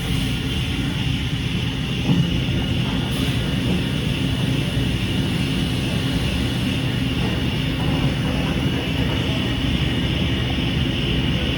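Hurco CNC milling machine running steadily, a continuous machine noise with low rumble and a faint high steady tone, and a single knock about two seconds in.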